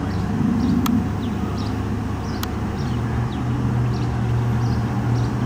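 A vehicle engine running with a steady low hum that grows louder about three seconds in, while small birds chirp repeatedly. Two sharp clicks stand out.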